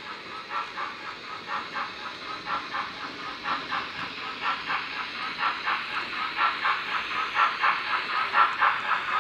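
Sound decoder of an OO gauge model steam locomotive (DCC sound) playing a steady steam chuff, about four beats a second, as the engine runs with a train of wagons. The chuffs get louder in the second half.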